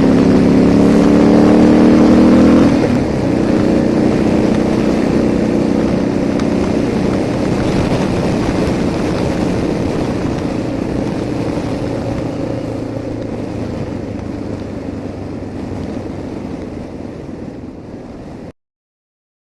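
Suzuki DR650's single-cylinder engine pulling under acceleration, heard with heavy wind noise through a cheap dictaphone. The engine note rises slightly and drops about three seconds in. The sound then fades steadily and cuts off abruptly near the end.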